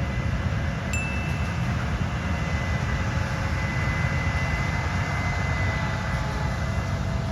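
Low, unsteady rumble of a combine harvester working in the corn field, with a thin, steady high ringing tone that fades out after several seconds and a brief higher tone about a second in.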